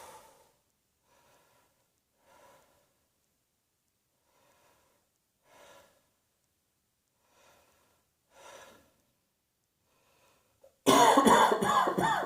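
A person breathing in short, faint breaths about once a second, then breaking into a sudden loud fit of coughing about eleven seconds in.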